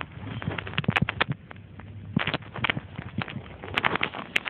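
Irregular clicks and knocks of hands and parts being handled, with a small cluster about two seconds in and another near the end, over a steady low hum.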